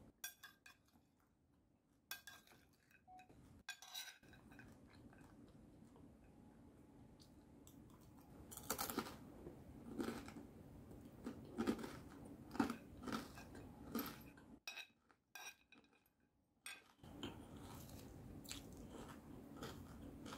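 Close-up crunchy chewing of a crispy fried salad of crispy pork, crispy fish and pork rinds, loudest in a run of crunches in the middle. A metal spoon clinks against a plate a few times near the start.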